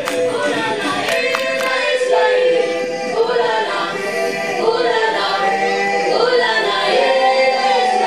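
Music with a choir singing: a group of voices carries a melody that runs on without a break.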